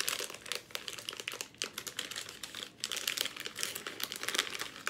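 Plastic snack bag of sesame chips crinkling steadily in irregular, rapid crackles as it is handled and pulled open with both hands.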